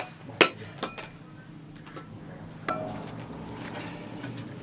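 A few sharp clinks and knocks of metal dishes being handled, the loudest about half a second in; one near the three-second mark rings briefly.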